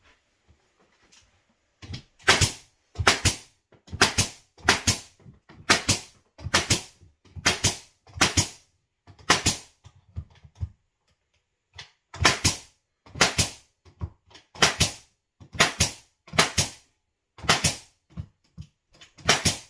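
Pneumatic nail gun firing about twenty times, driving nails into a 1x4 wooden window trim board. The shots come in quick runs, often less than a second apart, with a pause of about two seconds near the middle.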